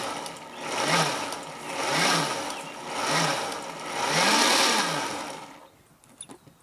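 Countertop blender pulsed on and off four times, its motor winding up and down with each pulse, the last pulse the longest, chopping parsley, garlic and oil into chimichurri. The short pulses keep the sauce coarse rather than smooth.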